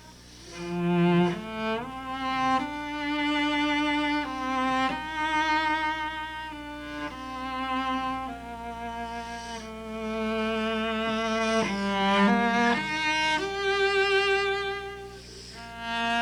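Solo cello playing a slow, singing melody in long, smoothly joined bowed notes with a wide vibrato, with a few quicker notes a little past the middle.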